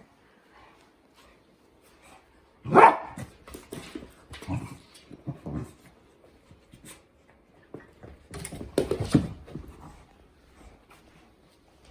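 Dogs barking in play: one loud bark about three seconds in, several more up to about six seconds, then another run of barks about eight and a half seconds in.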